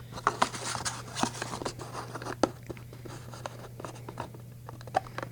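Crinkling and clicking of a die-cast toy car's card-and-plastic packaging being handled and turned over, busiest in the first couple of seconds, then a few scattered clicks.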